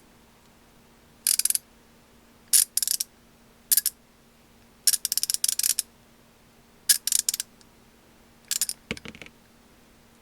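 KTC BR390 3/8-inch drive, 90-tooth wedge-pawl ratchet handle swung back and forth in short strokes, giving about six quick bursts of fine, rapid clicking with short pauses between them. A duller knock comes near the end.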